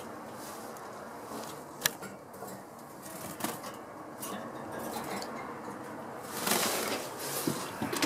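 Light clicks and clinks around wire finch cages, the sharpest about two seconds in, over a low steady background, with louder rustling from about six seconds in.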